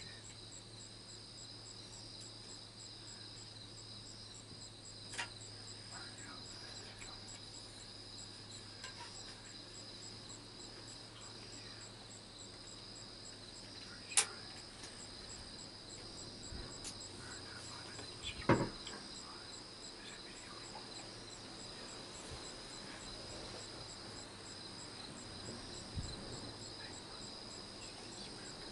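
Night insects chirping in a steady, finely pulsing high drone, with a few scattered sharp clicks and knocks, the loudest about 14 and 18 seconds in.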